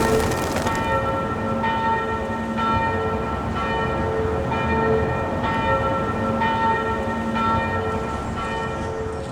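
Church bells ringing, a stroke about once a second, the pitch changing from stroke to stroke. A brief rushing noise sounds right at the start.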